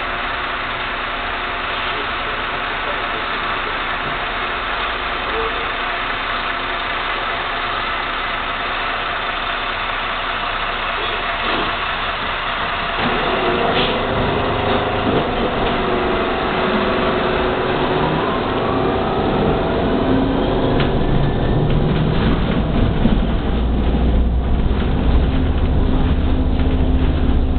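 Cabin sound of an Ansaldo-Mauri trolleybus: a steady hum while it stands, then about halfway through it moves off, with the electric traction motor giving a rising whine and road rumble growing louder toward the end.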